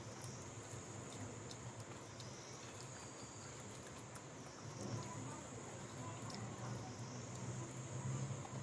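Faint close-up eating sounds: chewing and small wet mouth clicks.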